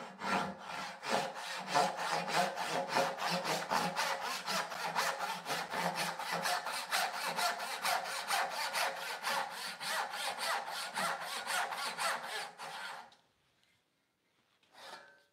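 Rob Cosman medium tenon saw, a brass-backed hand saw, ripping down along the grain of a poplar board in an even rhythm of about three to four rasping strokes a second. The saw goes through the poplar easily, and the sawing stops about thirteen seconds in.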